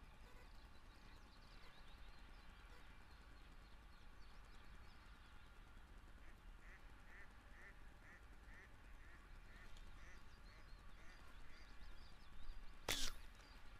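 Faint outdoor background with a bird calling in a run of short repeated notes, then a single sharp snap about thirteen seconds in as a double-band slingshot is released to shoot a fishing arrow at a carp.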